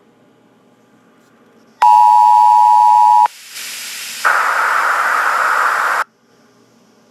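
A brief burst of the EAS two-tone attention signal, a steady pair of tones, starting about two seconds in and cutting off after about a second and a half. It is followed by a hiss of static that jumps louder after about a second and stops suddenly about six seconds in.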